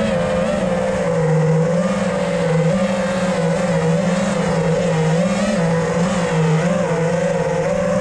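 Racing quadcopter's brushless motors and tri-blade propellers whining continuously, the pitch wavering up and down as the throttle changes.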